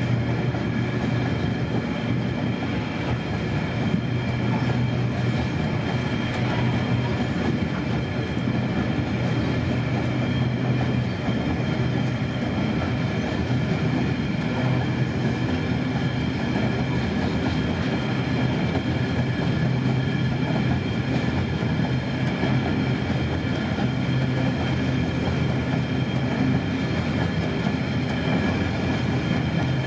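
Freight train of covered hopper wagons rolling past, with the steady, unbroken noise of steel wheels running on the rails.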